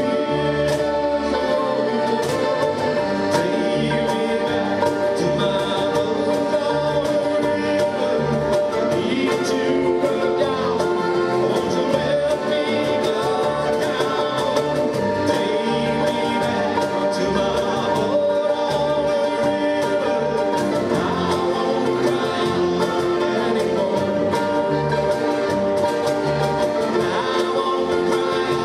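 Live acoustic folk band playing: accordion holding chords, with mandolin, strummed acoustic guitar and a cajón keeping a steady beat.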